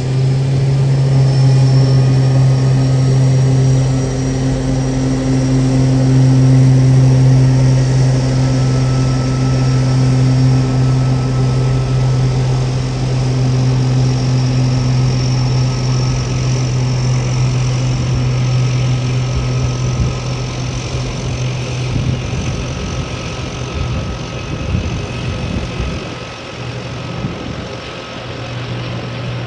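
Cessna 180J Skywagon floatplane's piston engine and propeller at takeoff power: a loud, steady drone through the run across the water that turns uneven and fades as the plane lifts off near the end.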